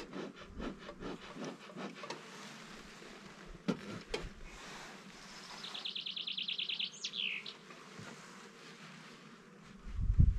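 Honeybees buzzing around an opened hive. Wooden hive frames scrape and rub in quick strokes for the first couple of seconds, and there is a low thump near the end.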